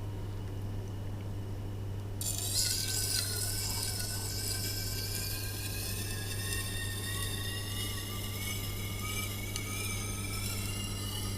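Tormek T8 sharpener's motor humming steadily; about two seconds in, a knife blade is set against the turning wheel and a hissing, scraping grind begins, with a faint whine that slowly rises in pitch.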